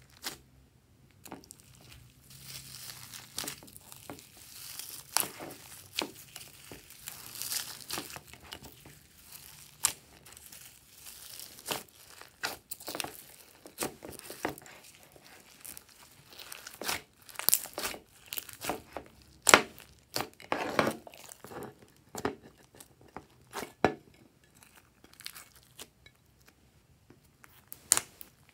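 Hands squeezing, stretching and pressing slime, first a glossy blue slime and then a white slime with foam beads mixed in, making irregular sticky pops and crackles as it is pressed and pulled apart.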